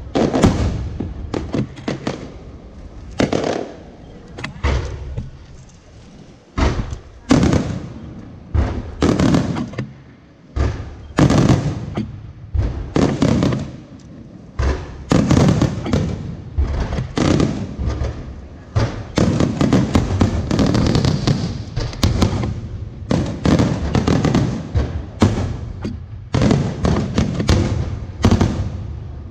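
Fireworks display: a dense, irregular run of sharp bangs and bursts, some coming in quick clusters, each dying away briefly.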